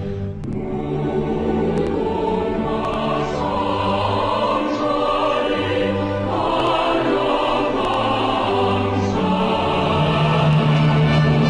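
Dramatic choral music with orchestra: a choir holding sustained chords that change every second or two.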